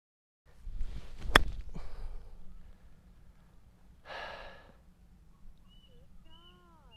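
A golf wedge striking the ball on a short pitch shot: one sharp, loud click about a second and a half in, over outdoor ambience. A short breathy sigh follows a few seconds later, and a few short high chirps come near the end.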